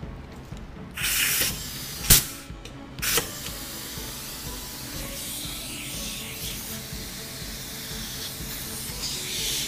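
Compressed air hissing at the hose fitting of a Central Pneumatic 3-gallon air compressor. A short burst of air and two sharp clicks come as the quick-connect coupler is worked on. After that comes a steady hiss of air leaking past the fitting's threads, which have no thread tape.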